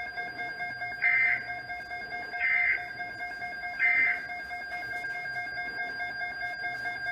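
Emergency Alert System end-of-message data bursts from a NOAA Weather Radio broadcast: three short bursts of shrill digital tones, about a second and a half apart, signalling the end of the alert. A steady faint tone from the radio reception runs underneath.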